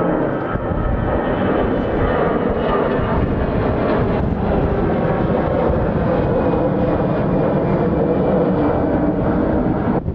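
Jet airliner engines heard close by at high power: a steady, loud rumbling noise with faint whining tones in the first seconds.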